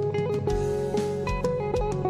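Background music led by guitar, with a steady beat and a moving melody.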